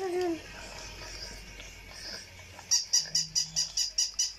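Battery-powered toy giving a rapid, even run of high electronic chirps, about five a second, which starts up again a little past halfway through. A brief wavering cry fades out at the very start.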